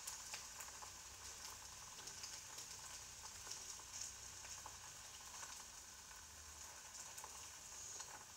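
Egg frying in a pan on the stove: faint, steady sizzling with scattered small crackles, and a brief click right at the start.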